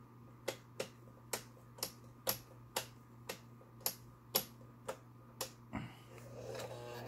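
Stitch-pattern selector dial of a Toyota 5080 sewing machine being turned, clicking through its detents about eleven times, roughly two clicks a second. Near the end the machine's motor starts up and begins to run.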